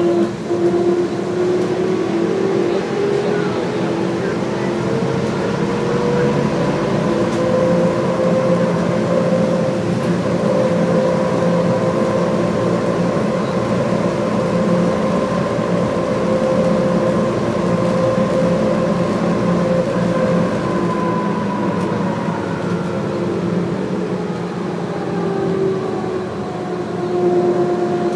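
Subway train running, its electric traction motors giving a whine over a steady rumble. The whine rises in pitch over the first several seconds as the train speeds up, holds steady, then falls again near the end as it slows.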